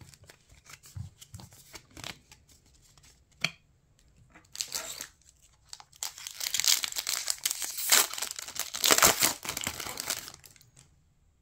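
Foil booster-pack wrapper of a Pokémon trading card pack being torn open and crinkled, a dense crackling rustle for about four seconds in the second half. A few light clicks of cards being handled come before it.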